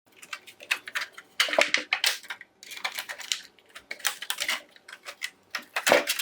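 Irregular clicks, taps and scrapes of a power supply's circuit board and its metal and plastic parts being handled and worked loose by hand, louder and busier near the end.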